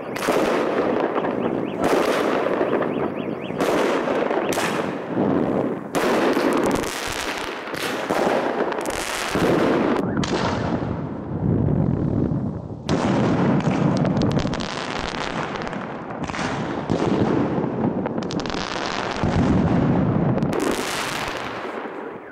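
Aerial fireworks bursting overhead, one loud bang after another at about one a second, dying down near the end.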